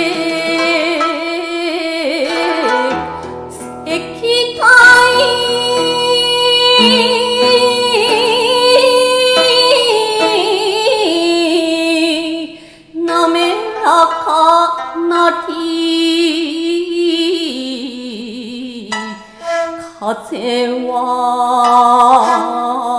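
Woman's shigin recitation: long held, wavering vocal notes of a chanted Chinese-style poem over instrumental accompaniment, with a short break about halfway through.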